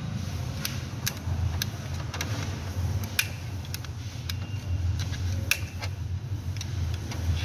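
Irregular light clicks and ticks of a small hand tool prodding the plastic and metal parts of an Audi A4 door lock latch assembly that sticks and does not extend fully, about a dozen clicks spread unevenly, over a steady low hum.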